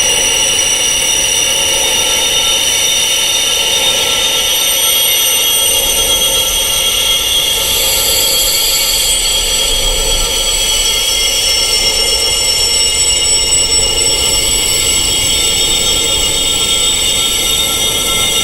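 Wind chimes tuned to high pitches, many tones ringing on together in a steady, unbroken wash.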